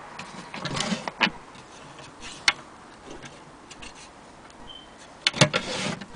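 Handling noise from an antique wooden Willcox & Gibbs sewing machine case: sharp clicks and short knocks and rubs of the wood and its metal carrying handle as it is gripped and turned over. The clicks come in a cluster about a second in, once sharply about two and a half seconds in, and in a busier run near the end.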